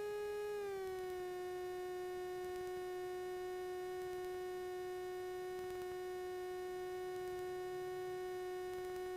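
Steady electrical whine on the ultralight's intercom/radio audio: one clear tone with overtones, dipping slightly in pitch just under a second in and then holding steady.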